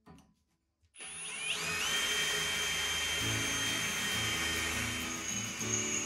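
Cordless drill starting about a second in, its motor whine rising briefly and then holding steady as a twist bit cuts into steel square tubing.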